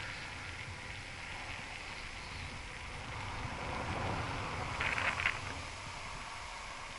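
Rolling noise of a mountain bike riding on asphalt, with wind on the camera microphone, and a brief rattle about five seconds in.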